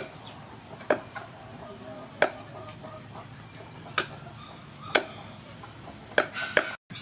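Meat cleaver chopping raw chicken on a wooden chopping board: single hard chops about once a second, with two quick chops close together near the end.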